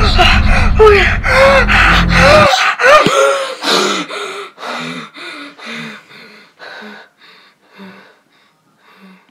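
A boy gasping for breath in quick, panting gasps over a loud low rumble. The rumble cuts off suddenly about two and a half seconds in, and the gasps then slow and fade away.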